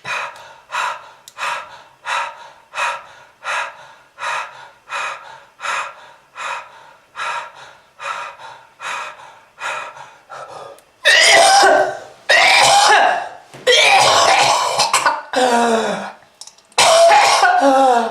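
A person coughing in short, regular coughs, about one every 0.7 seconds, then from about eleven seconds in breaking into louder, longer, harsh hacking and throat-clearing fits, staged as a smoker's cough.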